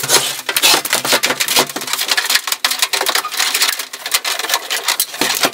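Washing machine being pushed back into place over a concrete floor: a continuous, uneven scraping and crackling as it slides.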